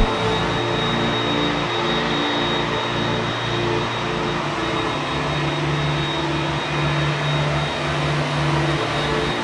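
Steady jet engine noise from a large military aircraft.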